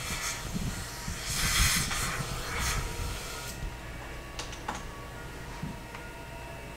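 Dental equipment working in an open mouth: hissing in short bursts for the first few seconds, then a few light clicks.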